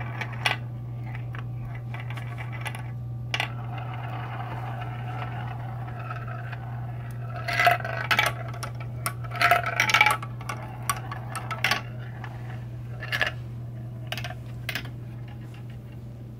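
Marbles rolling and clattering through a plastic marble run's funnel bowls and tracks: scattered sharp clicks and clacks, thickest about halfway through, over a steady low hum.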